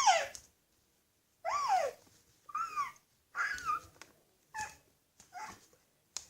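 Cat meowing repeatedly: a string of about six short meows, roughly one a second, each rising then falling in pitch.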